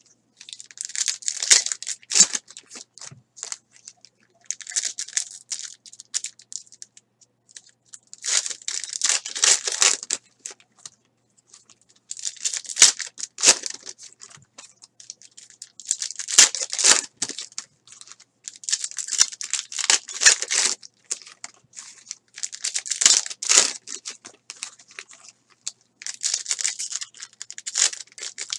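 Foil trading-card packs being torn open and crinkled by hand, their heavily glued seams ripping apart. The tearing comes in about eight bursts, each lasting a second or two, with short pauses between them.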